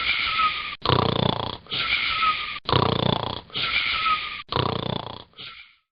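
A boy snoring in his sleep, fast and regular, about one breath every two seconds. Each breath alternates a low fluttering snore with a higher whistling wheeze.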